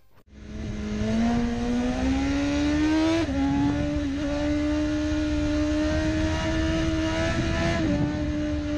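BMW S1000RR's 999cc inline-four engine pulling hard at high revs with wind rush. Its note climbs for about three seconds, drops sharply at an upshift, then holds high with a smaller drop near the end.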